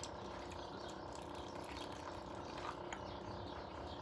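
Tap water running steadily from a faucet into a sink.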